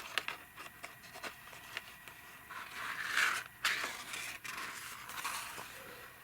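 Hook-and-loop (velcro) picture pieces being pulled off and pressed on, giving scratchy tearing rasps: a few short clicks first, then several rough swishes, the loudest about three seconds in.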